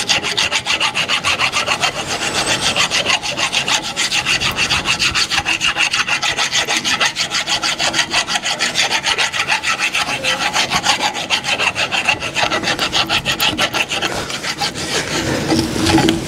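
Metal being abraded by a tool rasping into an oil-seal seat, in a fast, even rhythm of about six pulses a second. The seat is being opened up because the housing is so chewed up that the new seal would not sit properly.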